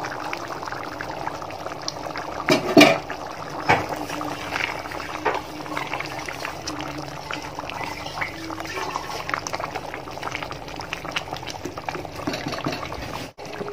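Thick beef curry simmering in an open aluminium pot, bubbles popping steadily as the liquid boils off and the curry thickens. A wooden spatula scrapes and knocks against the pot a few times, loudest about three seconds in.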